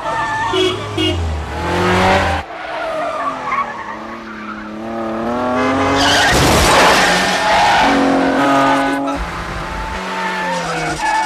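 Car-chase soundtrack: car engines revving hard and tyres squealing, with a long, loud skid about six seconds in.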